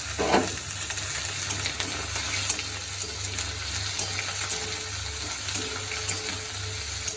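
Chopped radish frying in hot oil in a pan: a steady sizzle with faint crackles, and a short knock just after the start.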